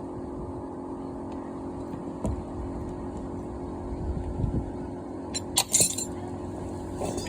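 Small metal parts and hand tools clinking against each other several times in quick succession about five and a half seconds in, and once more near the end, over a steady low hum.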